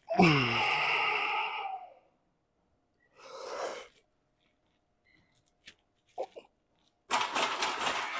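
A man's long voiced sigh, falling in pitch, followed by a few breathy exhales; the last exhale, near the end, is loud.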